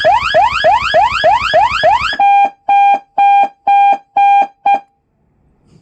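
Senken CJB100R police siren speaker sounding an electronic siren tone of fast, repeated rising sweeps, about three a second. About two seconds in it switches to a steady single-pitch beep pulsing on and off about twice a second, six beeps, then stops.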